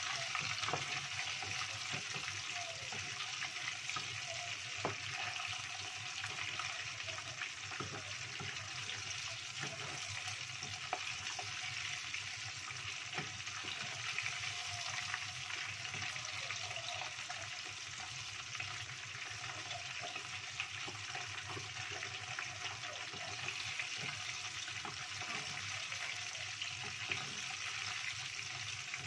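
Battered chicken wings deep-frying in hot oil in a small saucepan, a steady sizzle throughout. A few light knocks come as a wooden spatula stirs them against the pot.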